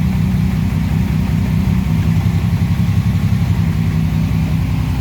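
Car engine idling steadily, its note shifting slightly about two seconds in.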